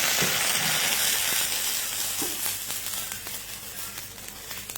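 Hot sesame oil and mugwort leaves sizzling and crackling in a small pan after water is poured in, the hiss gradually dying down.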